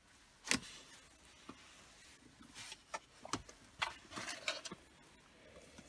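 Light clicks and rustles of loose wires and plastic-sleeved spade connectors being handled, with one sharper click about half a second in and a short cluster of small clicks near the end.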